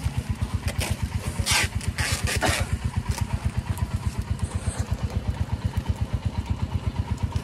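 A small engine running at a steady idle, an even low chugging, with a few short hissing noises about two seconds in.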